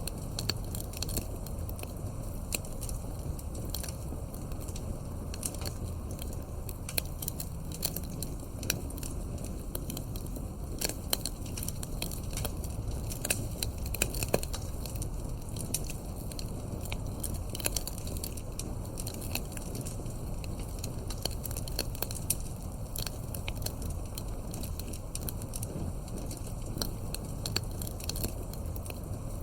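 Wood fire crackling: a steady low rumble of burning logs with frequent irregular sharp pops and snaps, a few louder pops around the middle.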